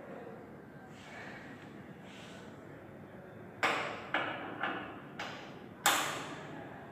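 Five sharp clacks, each dying away quickly, as hydraulic hose quick-coupling fittings are handled at a hydraulic trainer panel.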